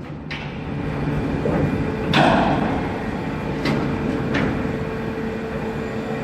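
Container-terminal machinery running with a steady hum, broken by several sharp metal clanks, the loudest about two seconds in, typical of containers being handled during unloading.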